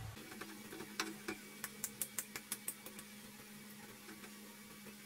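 Wooden spatula stirring and tossing instant noodles in a nonstick frying pan, tapping the pan in a run of light, quick clicks between about one and three seconds in, over a faint steady low hum.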